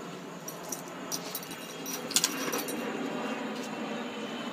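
A dog rolling and wriggling on its back on a bath towel over deck boards: rustling and scuffing, with scattered light clicks, the sharpest pair about two seconds in.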